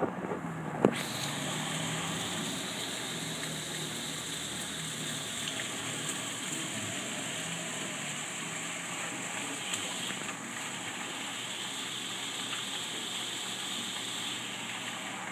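Heavy hail and rain pouring down in a steady hiss, with a sharp knock about a second in.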